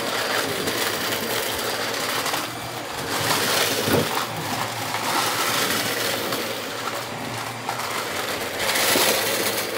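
Dirt Devil vacuum cleaner running, its brush roll crunching and rattling as it sucks up metal can pull tabs and small plastic bits from a rug. A few louder crunches stand out.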